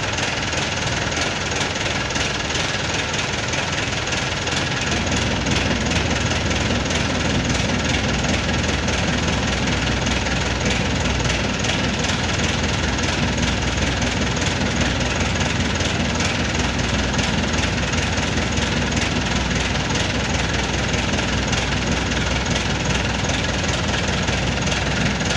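Avia A31 Turbo truck's turbocharged four-cylinder diesel idling with a steady knocking clatter, still cold after a start at −10 °C. About five seconds in, its deeper rumble grows louder and stays so.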